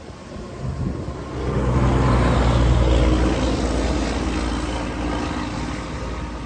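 Rolling thunder: a deep rumble that builds about a second in, is loudest around two to three seconds, then slowly dies away, over a steady hiss of rain.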